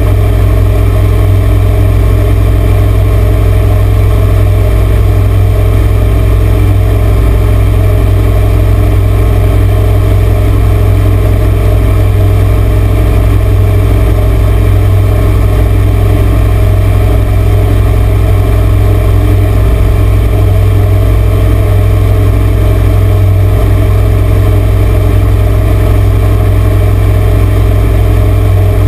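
The Four Winns 21 cuddy cabin boat's engine running steadily at towing speed: a loud, constant low drone that does not change, with water rushing in the churning wake.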